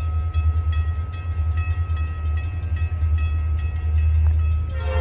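Railroad crossing bell ringing in quick, even strikes over a steady low rumble from the approaching Great Lakes Central train. Just before the end the locomotive's air horn starts to blow.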